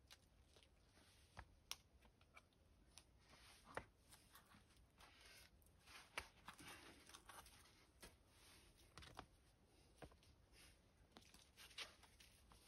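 Faint scuffs, scrapes and taps of a climber's hands and rock shoes on a boulder's rock as he moves between sloping holds, with a few sharper taps among them.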